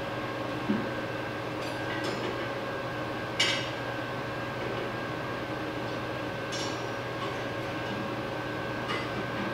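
Cowboy boots knocking and clattering as they are set down on a steel welding table and hung on a welded horseshoe rack, a few separate knocks with the sharpest clatter about three and a half seconds in. Under it runs a steady mechanical hum.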